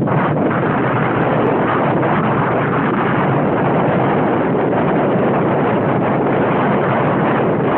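Steady, loud rush of wind buffeting a phone's microphone on a moving bicycle.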